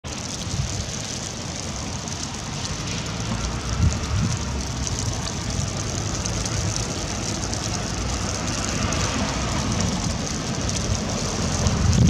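Steady hiss of wet snow falling onto river water and stones, over a low rumble.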